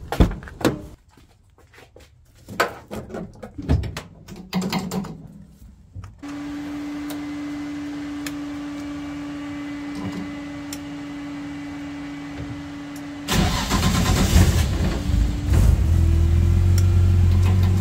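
Clicks and knocks, then a steady hum for several seconds, then the RB25DET turbocharged inline-six in a Nissan 240SX cranks, catches about 13 seconds in, and settles into a steady idle. The exhaust is so quiet.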